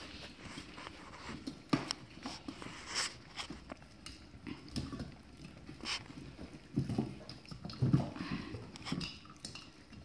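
Soft coated wheaten terrier puppies, five weeks old, eating raw chicken together from a metal bowl: busy, irregular chewing and biting with many sharp little clicks, and a couple of louder thumps about seven and eight seconds in.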